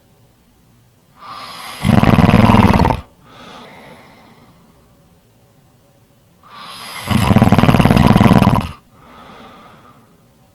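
A person snoring: two loud snores about five seconds apart, each building from a softer start and lasting a second or two, and each followed by a quieter breath out.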